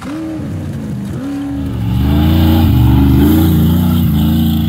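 Off-road racing vehicle engines revving hard, the pitch swinging up and down as the throttle is worked. About two seconds in, a louder, deeper-sounding engine takes over.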